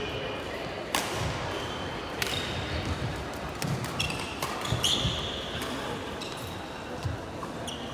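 Badminton doubles rally: a string of sharp racket strikes on the shuttlecock, with short high squeaks of court shoes on the wooden floor.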